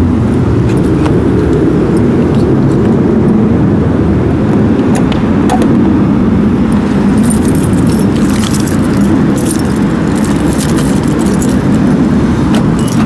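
A ring of keys on a carabiner jangling and clinking in hand, mostly in the second half, over a steady low rumble.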